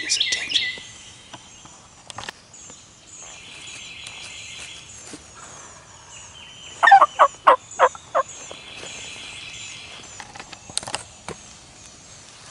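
A series of about six loud, quick turkey notes, each dropping sharply in pitch, about seven seconds in. Songbirds chirp throughout.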